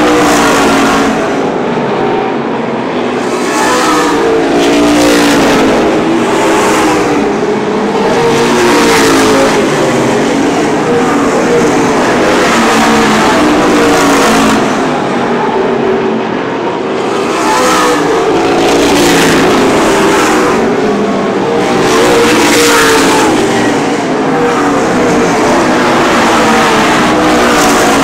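A pack of super late model stock cars racing, their V8 engines running hard. The pitch rises and falls as the cars go by and lift for the corners, and the level swells every few seconds.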